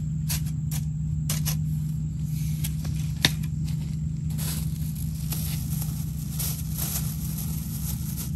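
A hand hoe striking and scraping the dry, clumpy soil, a quick run of sharp chops in the first second and a half and one more sharp knock about three seconds in, then loose rustling and crackling. A steady low hum runs underneath.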